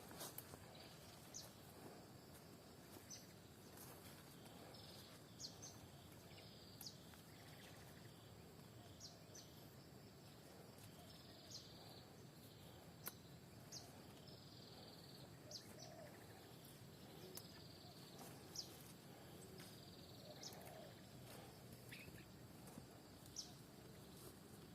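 Faint bird calls repeating every second or two: short high chirps and brief falling notes over a low, steady background hush.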